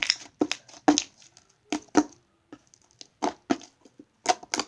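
Thick, glossy slime being squished and poked by hand, giving about a dozen sharp, irregular clicks and pops.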